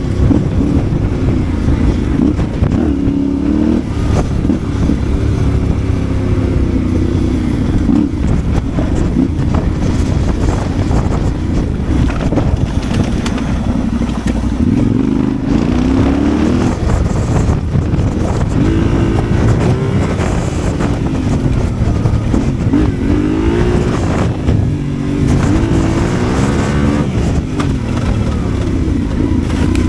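Yamaha Ténéré 700 World Raid's parallel-twin motorcycle engine running under load off-road, its pitch rising and falling again and again as the throttle is opened and closed.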